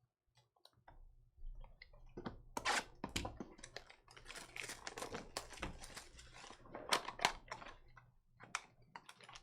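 Quick, irregular clicks and taps of typing on a computer keyboard, starting about a second and a half in and stopping shortly before the end.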